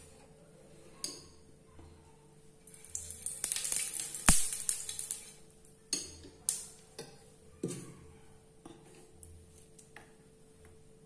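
Kitchen utensils and steel vessels clinking and clattering by the stove, with the loudest sharp knock about four seconds in and a few single clicks later on.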